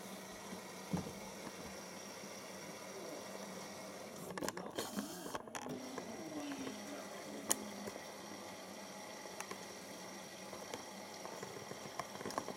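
Siemens iQ front-loading washing machine in the first seconds of its cycle, water running steadily into the drum, with a couple of sharp clicks.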